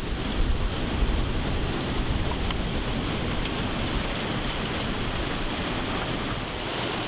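A steady rush of running water, spread from a low rumble up to a hiss.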